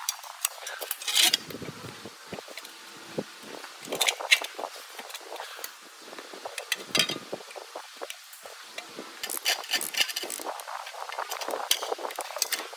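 Irregular clinks, taps and scrapes of hand work on metal parts, coming in loose clusters a few seconds apart.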